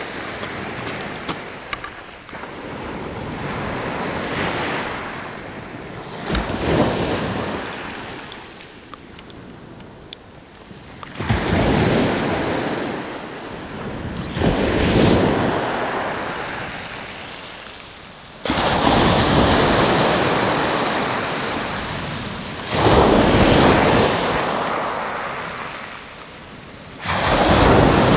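Waves breaking on a pebble beach, a surge about every four seconds that starts suddenly and then fades away. A few small clicks near the start.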